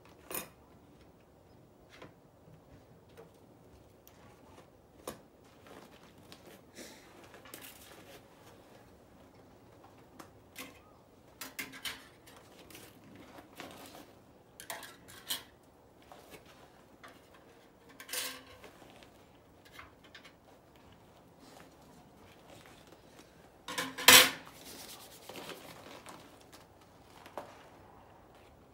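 Scattered clinks and clanks of aluminum cargo-carrier parts and hardware being handled and set down. The loudest is a short clatter of metal pieces about two-thirds of the way through.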